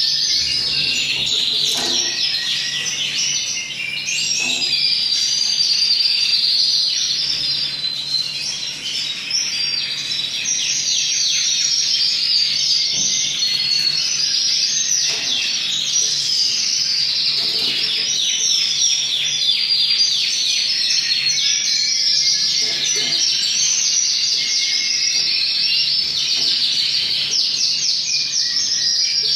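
Male red intensive canary singing without a break: a long, high song of rapid trills and clear whistled notes.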